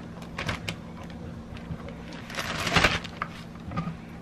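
Plastic zipper storage bag rustling and crinkling as cut kielbasa pieces are stuffed into it, with small scattered clicks and a denser rustle about two and a half seconds in. A faint steady low hum runs underneath.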